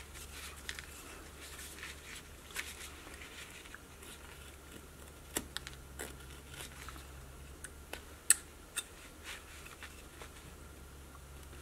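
Carving knife paring and slicing basswood: faint scraping cuts with a few sharper clicks, the loudest about eight seconds in, over a steady low hum.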